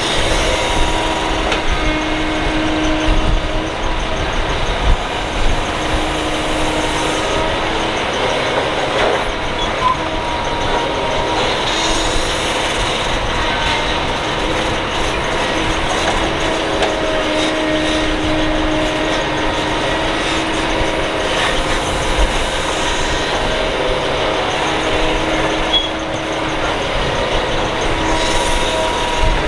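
Kobelco SK200 excavator working: its diesel engine and hydraulics run continuously with a steady whine, and there are a few sharp knocks about five and six seconds in.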